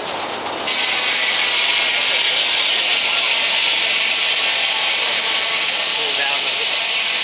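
Loud, steady hiss of steam venting from the mill's steam machinery, starting suddenly about a second in and holding without a break.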